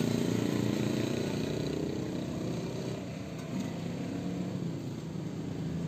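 Motor vehicle engine running in the background, fading gradually.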